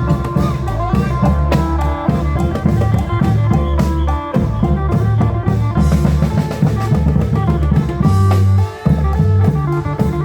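Isan klong yao (Thai long drum) band playing: a driving drum beat with frequent strokes over held bass notes and melody instruments.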